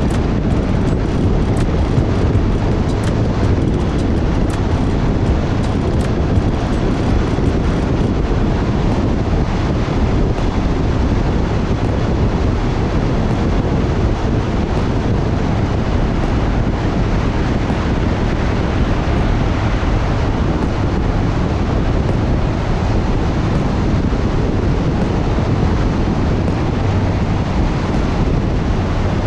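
Steady wind rush on the microphone over the road noise of a motorcycle riding fast through a road tunnel.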